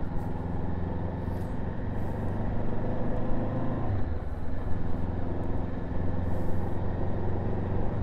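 Honda CB500F's parallel-twin engine running steadily while riding, with road and wind noise, picked up by a microphone inside the rider's helmet. Its note dips and shifts briefly about four seconds in.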